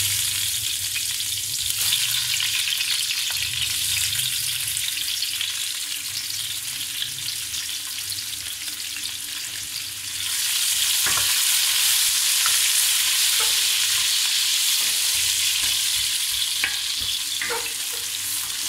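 Freshly added sliced onions sizzling in hot oil in a stainless steel pot as they start to fry, stirred with a wooden spoon. The sizzle grows louder about halfway through.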